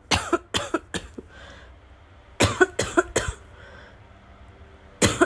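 A woman coughing in short bouts of three or four coughs each, drawing a breath between bouts. These are chesty coughs from a wheezing chest that bring no relief.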